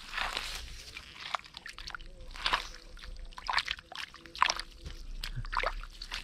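Muddy shallow water sloshing and splashing in short, irregular bursts as someone works through mud by hand while hunting for fish.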